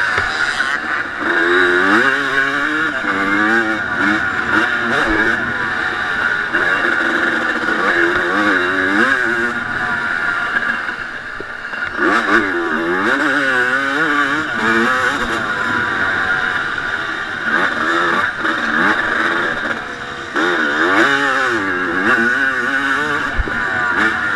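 1989 Honda CR250's single-cylinder two-stroke engine revving hard under a rider, its pitch rising and falling again and again with the throttle. The engine drops off briefly about eleven seconds in and again at about twenty seconds before picking up.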